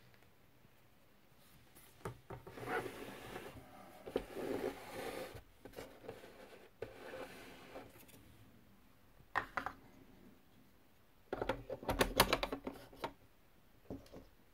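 A plastic toy index typewriter and its cardboard box being handled, with rubbing and scraping, then a quick run of sharp clicks near the end.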